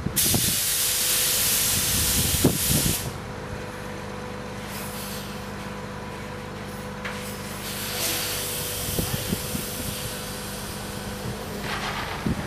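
Compressed air venting in a loud hiss for about three seconds, cut off by a knock, over a heavy diesel engine running steadily with a faint steady whine. Another knock comes near the end.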